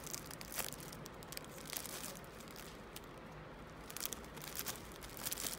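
Clear plastic sleeves on bunches of artificial flowers crinkling as they are handled, in irregular crackles with a quieter moment around the middle.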